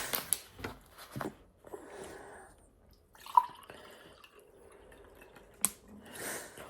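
Close-up pizza eating: chewing with wet mouth clicks and lip smacks, scattered through and irregular, with a sharp click about five and a half seconds in.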